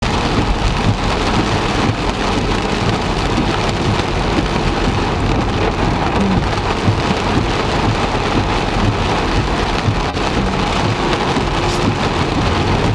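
Heavy rain pouring steadily, a dense even hiss with a deep rumble underneath.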